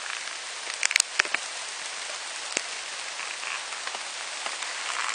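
Heavy downpour of rain falling on forest leaves: a steady hiss, with a few sharp taps about a second in and again near the end.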